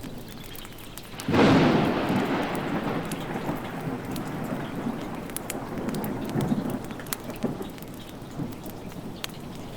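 Steady rain with a clap of thunder about a second in, its rumble slowly dying away over the following seconds.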